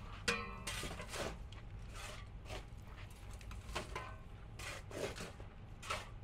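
Irregular scraping, rubbing and knocking from hand work in a ceramics factory, a quick run of strokes over a steady low hum.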